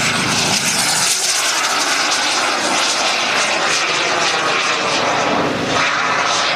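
Large radio-controlled model aircraft's engine running hard through an aerobatic manoeuvre, a loud steady rushing drone that swells slightly as it passes.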